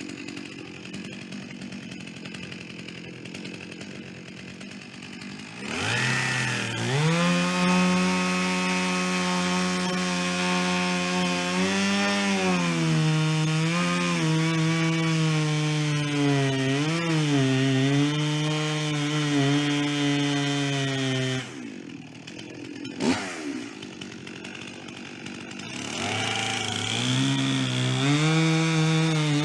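Chainsaw idling, then revved up about six seconds in and held at full throttle, its pitch dipping again and again as the chain bogs in the wood being cut. Past twenty seconds it falls back to idle, a single sharp knock follows, and near the end it revs up and cuts again.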